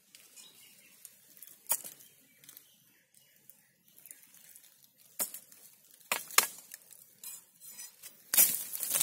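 Twigs and dry leaves crackling and snapping as someone moves through undergrowth, with a few sharp cracks about two, five and six seconds in and a louder cluster near the end.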